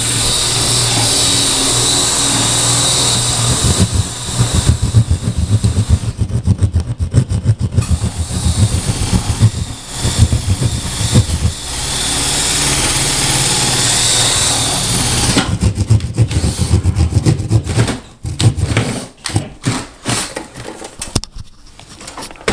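Saw cutting a round speaker hole in ceiling drywall. A steady whine alternates with stretches of rhythmic rasping strokes, and the cutting ends in a run of irregular knocks.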